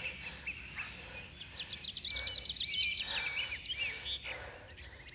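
Small birds chirping, with a dense run of quick short chirps and sliding notes in the middle, over a faint steady low background noise.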